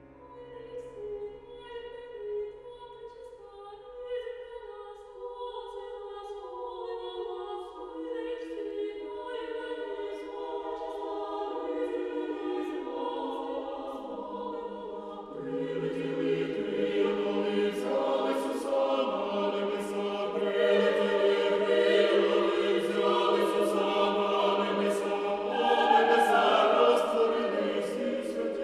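A choir singing slow, sustained music. It grows fuller and louder about halfway through as lower voices join.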